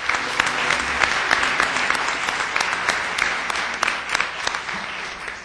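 Audience applauding, many hands clapping together, the clapping thinning out near the end.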